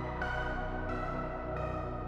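Background music: soft electronic keyboard notes at an even pace, a new note about every two-thirds of a second.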